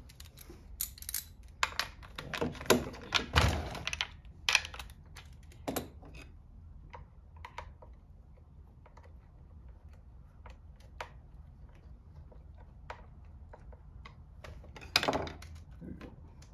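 Husqvarna 460 Rancher chainsaw's bar and chain being handled and fitted by hand: irregular metal clicks and clunks, thickest in the first four seconds or so, then sparse ticks, with one louder knock near the end.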